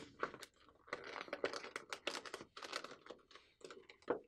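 A sheet of paper rustling and crinkling irregularly as it is folded and creased flat with a plastic folding tool, then lifted and handled.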